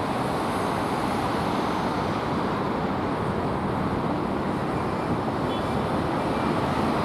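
Steady road traffic noise, with a few faint short high tones about five seconds in.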